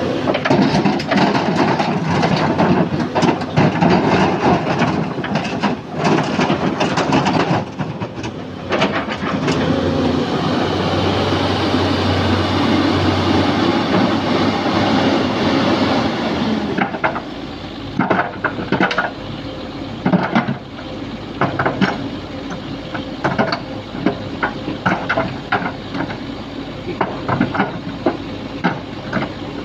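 Sany SY215C excavator's diesel engine running under load, with a dense rattle of crushed stone being scooped and dumped. About 17 seconds in, the sound turns quieter, with many sharp clacks of stones striking each other.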